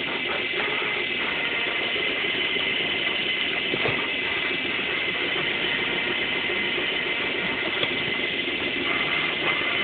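A machine running steadily, an even mechanical drone with a few faint clicks.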